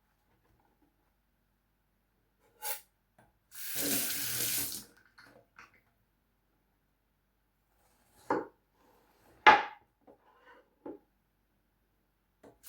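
Kitchen tap turned on for about a second of running water, then a few short knocks, the second one sharp and the loudest. The water starts running again right at the end.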